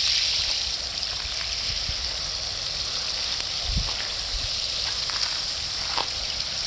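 Water spraying from a watering can's rose onto potted succulents and their soil: a steady hiss, easing slightly about a second in.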